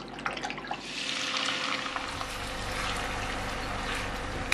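Raw meat being handled wet in a steel sink, with a few soft clicks and splashes. About a second in, a steady rush of running tap water starts, as for rinsing the meat.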